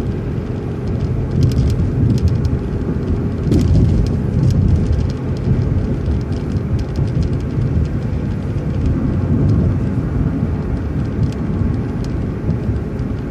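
Transit bus driving, heard from inside: a steady engine and road rumble with a faint whine in the first few seconds and a few light clicks and rattles.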